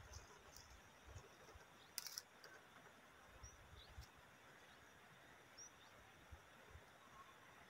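Near silence: faint outdoor ambience, with a soft click about two seconds in and a few brief, faint high chirps.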